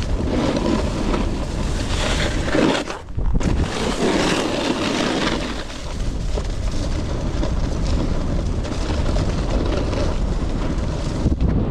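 Wind buffeting the microphone over the scrape of a snowboard running on snow, a steady rushing noise that dips briefly about three seconds in.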